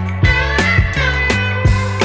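Background music with guitar over a bass line and a steady drum beat.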